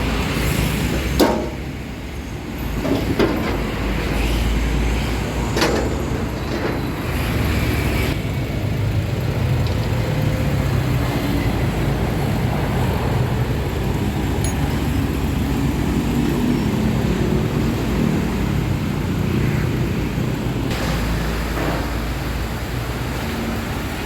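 Motor vehicle engine running steadily with a low rumble, with a few sharp knocks in the first several seconds.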